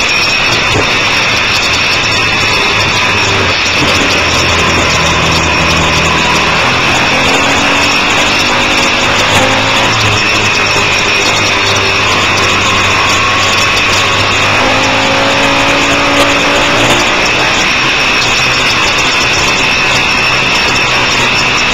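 Motorcycle at speed heard from an onboard camera: a loud, steady rush of wind noise over the engine, whose pitch rises in a few pulls as it accelerates out of the corners.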